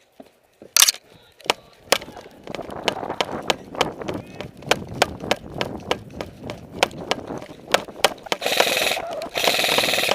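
Airsoft gameplay: a run of irregular sharp clicks and knocks over a rustle of movement, then near the end two bursts of rapid airsoft gun fire, each under a second long.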